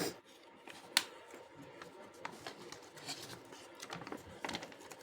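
Faint handling noises of a keyboard's packaging and leaflet: small clicks and rustles, with one sharp click about a second in and more clicks near the end.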